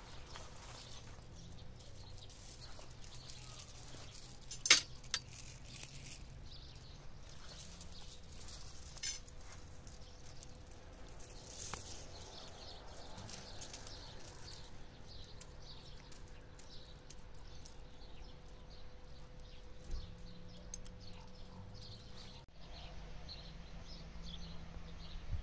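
Faint outdoor background with a few sharp metal clinks, the loudest about five seconds in, as a steel chain is handled and hung on a forged steel tripod's trammel hook. A faint steady hum runs underneath and stops near the end.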